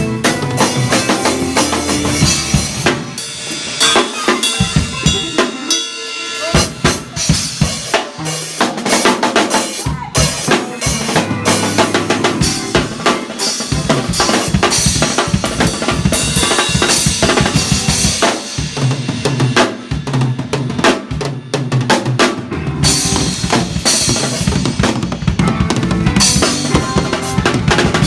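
Drum kit played live with a band: a busy stream of kick and snare hits with cymbals, over held lower notes from the band's other instruments.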